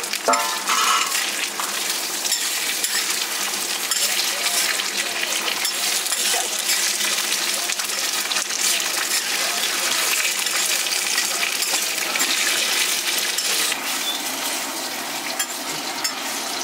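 Food sizzling as it fries in a pan, a steady hiss with light metallic clinks of a utensil against the pan.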